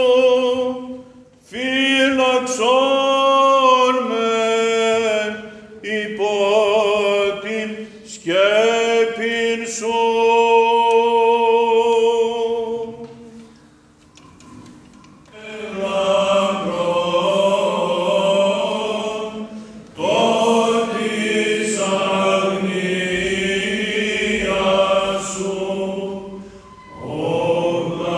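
Byzantine chant by unaccompanied male cantors. A single voice sings long, ornamented phrases with held notes, and after a short pause about halfway through, several male voices take up the chant together.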